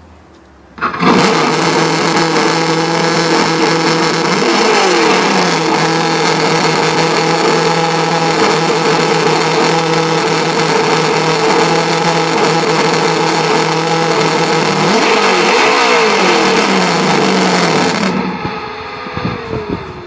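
Simulated engine sound from a Traxxas On-Board Audio module's speaker. It starts up about a second in, runs steadily with two throttle revs, and shuts off near the end.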